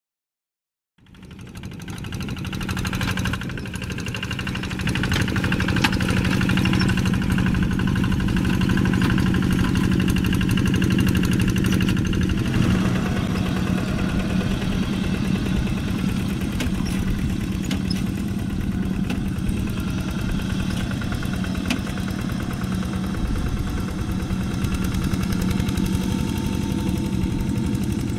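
Two-wheel hand tractor's diesel engine running steadily while the tractor works through wet paddy mud, coming in about a second in and holding an even, steady drone.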